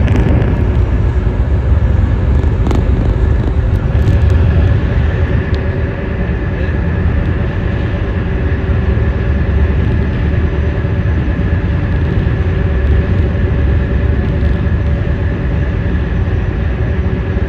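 Passenger ferry under way: a steady engine drone with a few constant hum tones, over a heavy low rumble of wind and churning water.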